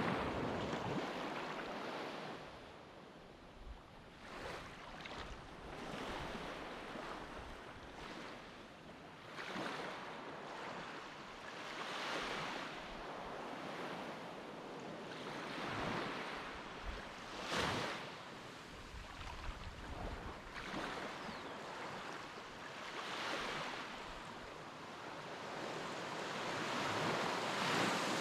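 Sea waves washing in surges that rise and ease every few seconds, with wind buffeting the microphone.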